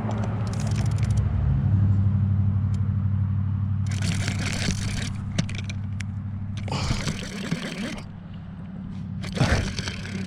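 A steady low engine hum, strongest from about two seconds in, with three short bursts of rushing noise.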